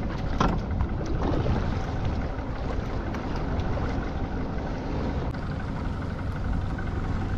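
Steady background noise aboard a small boat at sea, with a low rumble and a faint steady hum. There is a brief louder sound about half a second in.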